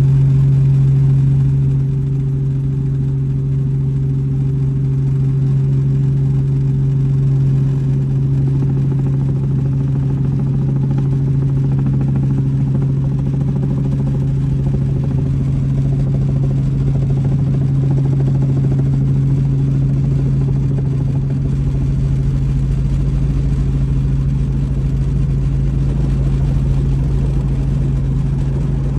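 Helicopter in flight, heard from inside the cabin: a loud, steady drone of rotor and turbine with a strong low hum as it descends toward the landing pad. About three-quarters of the way through a deeper low rumble joins in as it nears the ground.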